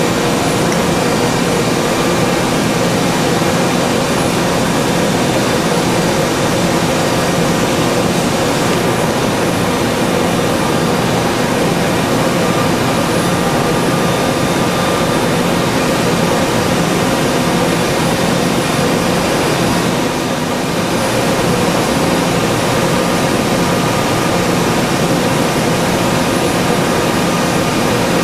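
Matsuura CUBLEX-42 five-axis CNC machine milling a solid metal motorcycle part with a small ball-end mill: steady spindle and cutting noise with a few held whining tones.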